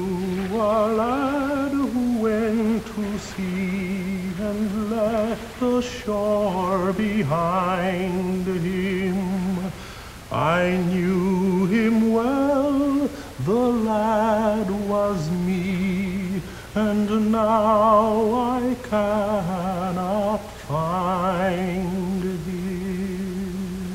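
Film score: a slow, mournful solo melody of long held notes with wide vibrato, each note sliding up into its pitch, in phrases of a few seconds separated by short breaks.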